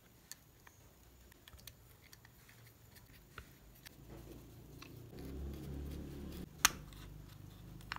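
Faint clicks and scraping of a screwdriver turning a screw into a plastic fan gearbox cover, with a low grinding rub from about halfway through that ends in a sharp click.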